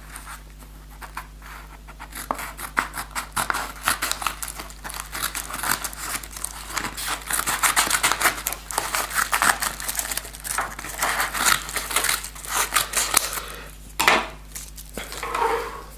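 A postal parcel's packaging being cut open with scissors and handled: a long run of irregular snipping and crinkling, with one sharp knock near the end.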